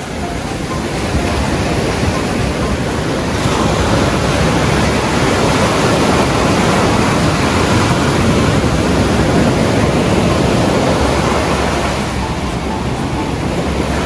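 Ocean surf: a loud, steady rush of breaking waves that builds over the first few seconds and eases near the end.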